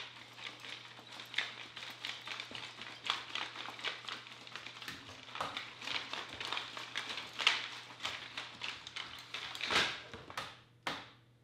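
Dense, irregular rustling, tapping and clattering of objects being handled, over a faint low steady hum. It stops suddenly near the end.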